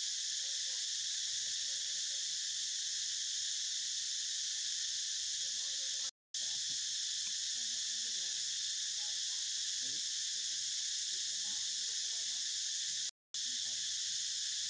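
Steady, high-pitched chorus of insects droning without a break. It cuts out for an instant twice.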